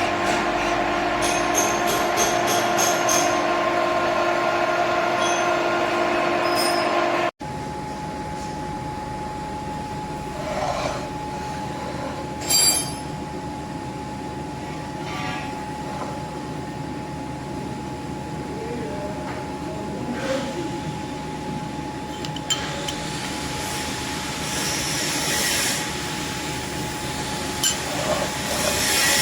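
Machine tool running steadily with a constant hum and whine, and a few short metal clinks. An edit about seven seconds in cuts to a different, single steady whine.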